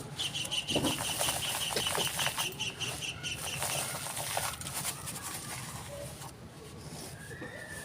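A bird calling in a quick run of short high chirps, about six a second, for roughly three seconds, then stopping. Scattered crackles and small clicks of dry texture being crumbled run underneath.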